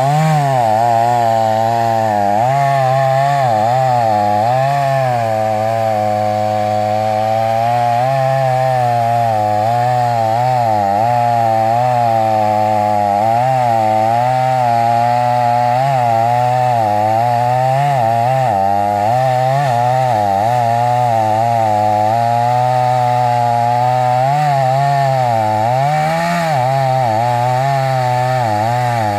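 Chainsaw engine running continuously while cutting wood, its pitch dipping and recovering every second or two as the chain loads up in the cut.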